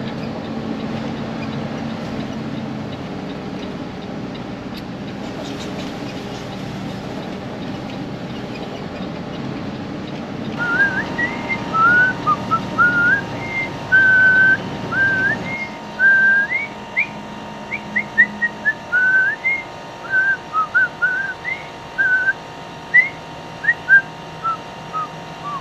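Steady low rumble of a tow truck driving, heard inside its cab, for about the first ten seconds. Then a whistled tune of quick rising and falling notes comes in abruptly over a steady backing tone, as background music.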